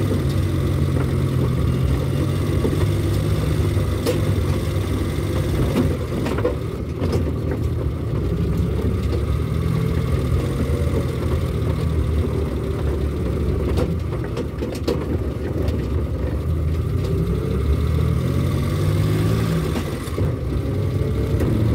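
Car engine running with tyre and road noise, heard from inside the cabin while driving. The engine note rises and falls with the throttle, and a few short knocks come partway through.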